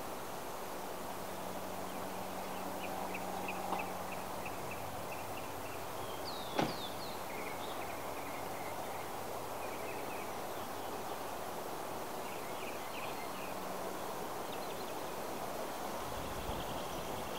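Steady outdoor background noise with rows of faint, high, rapid chirping that come and go several times, and one sharp click about six and a half seconds in.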